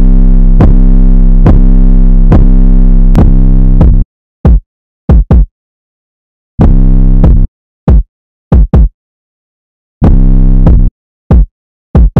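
Background electronic beat: a held synthesizer chord over a deep bass for about four seconds, then short drum-machine hits broken by sudden silences, with the chord returning twice.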